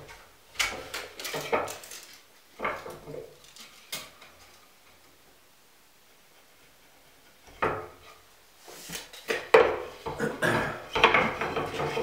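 Wooden board being shifted and set down on a miter saw's table, giving scattered knocks and light clatter, along with a tape measure and pencil being handled while the board is marked out. There is a quiet spell of a few seconds in the middle, and the clatter picks up again near the end.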